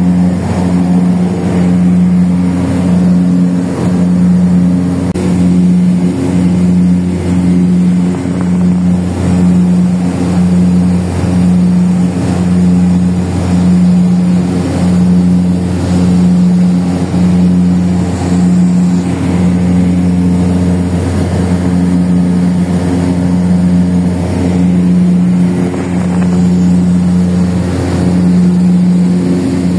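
Aircraft engines droning steadily inside the cabin in flight, a loud low hum that throbs in a slow, even beat a little under once a second.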